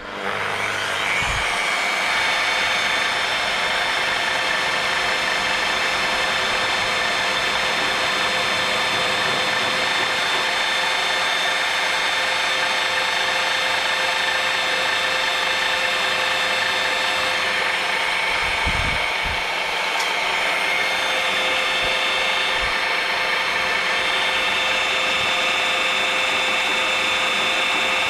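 Magnetic-base drill's electric motor spinning up and then running steadily with a whine while a twist drill bit is fed into a steel plate.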